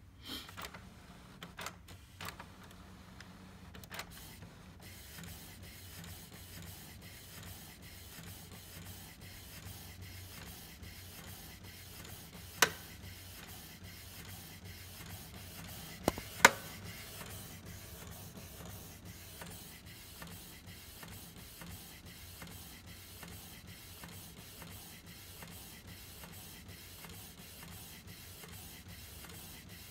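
Canon PIXMA MX922 inkjet printer printing onto a PVC card fed through its disc tray: a steady whir with fast, regular ticking as the print head runs back and forth. Two sharp clicks stand out around the middle.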